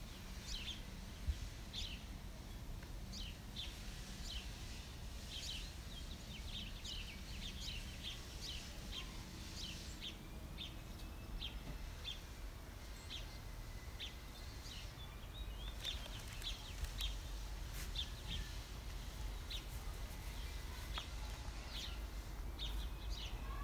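Songbirds chirping, short high calls repeating about once or twice a second, over a low steady outdoor rumble.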